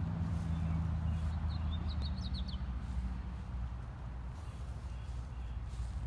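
A few quick, high bird chirps about two seconds in, over a steady low rumble.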